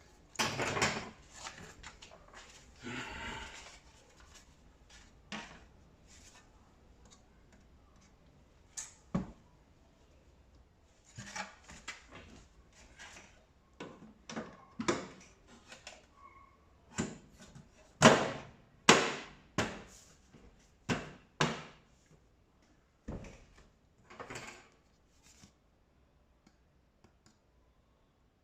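Irregular knocks, clicks and short scrapes of tumble dryer parts being handled and fitted together, with a burst of louder knocks about two-thirds of the way through.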